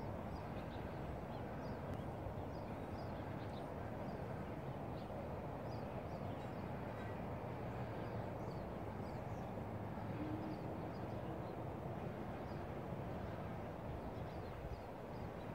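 Small birds chirping in short, high notes, scattered all through, over a steady low outdoor rumble.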